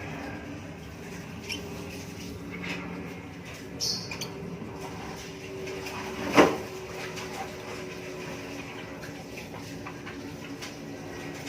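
Faint squeaky cheeps and scuffling, typical of one-week-old lovebird chicks, over a steady low hum. A loud sharp knock comes about six seconds in.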